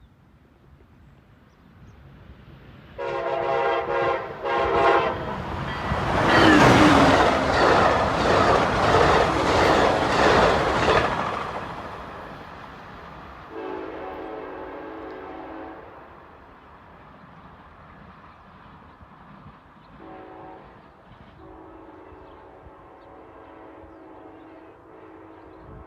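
Amtrak Pacific Surfliner train's multi-chime air horn sounds two short blasts, then the train passes close with loud wheel clatter for about five seconds. Afterwards come quieter, slightly lower-pitched horn blasts, one of about two seconds and a longer one near the end, as the train moves away.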